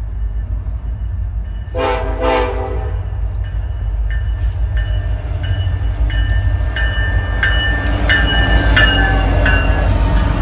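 Union Pacific 1995, an EMD SD70ACe freight locomotive, sounds one short horn blast about two seconds in, then a bell rings steadily about every two-thirds of a second as the train approaches and passes. Under it the rumble of the locomotive and its train grows louder as it draws near.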